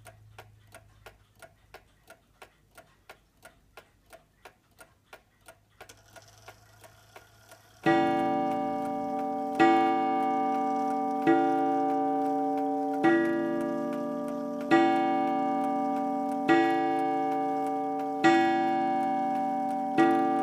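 Seth Thomas Adamantine mantel clock's hip movement ticking about three times a second. A faint whir comes about six seconds in. From about eight seconds the hammer strikes its coiled wire gong eight times, about 1.7 s apart, each stroke ringing on into the next as the clock strikes ten o'clock.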